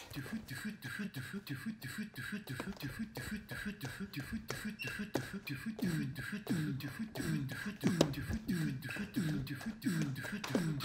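Beatboxing into a handheld microphone: a fast, steady beat of sharp clicks and drum-like hits. From about halfway, repeated downward-swooping tones join the beat.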